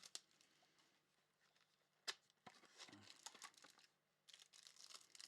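Faint crinkling and tearing of a trading-card pack wrapper being opened and handled, with a sharp click about two seconds in.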